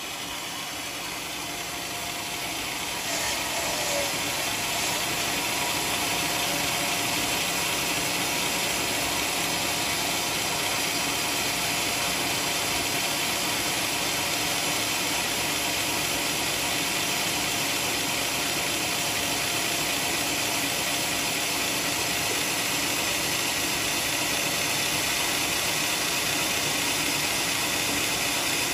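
Homemade band sawmill running steadily, its blade sawing coconut timber. The noise swells about three seconds in and then holds level.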